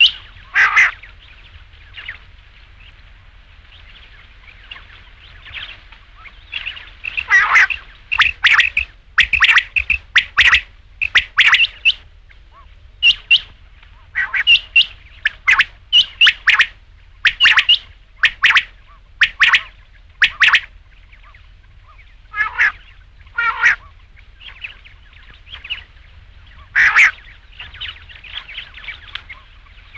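Rain quail calling, a rapid series of short, sharp, high notes, often doubled, repeated in bouts with brief pauses between them.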